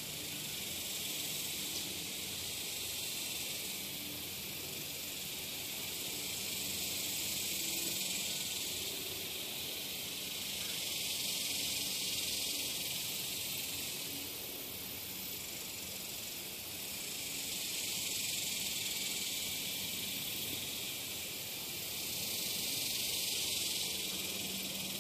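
Steady high-pitched outdoor hiss that swells and eases every five seconds or so.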